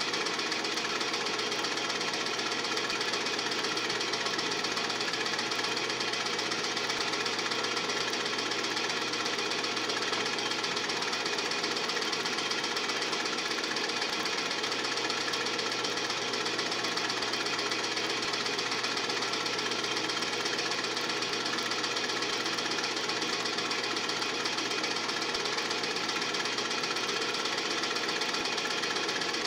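Steady, fast mechanical clatter of a film projector running, unchanged throughout: the mechanism noise of old silent home-movie film being played back for transfer.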